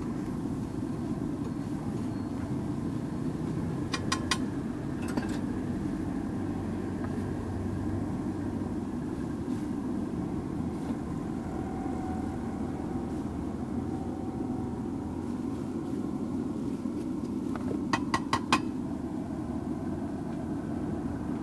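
Steel spatula striking a flat iron griddle: a quick run of about four metallic taps about four seconds in, and again near eighteen seconds, as egg bhurji is chopped and mixed. Under it runs a steady low rumble.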